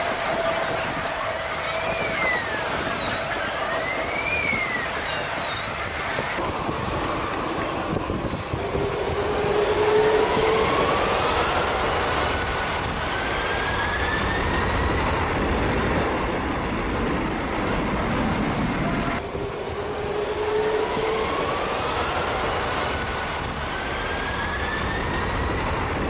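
Boeing 747's four jet engines running at the runway end over a loud, steady rush of jet blast. A steady engine whine comes first, then, twice, a whine rising in pitch as the engines spool up toward takeoff thrust.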